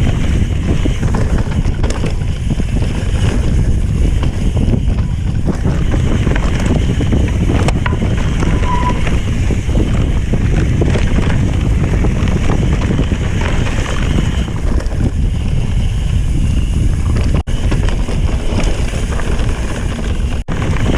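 Wind buffeting the action-camera microphone over the tyre and frame rattle of a mountain bike descending a dirt trail at speed: a loud, steady rumble that cuts out for a split second twice near the end.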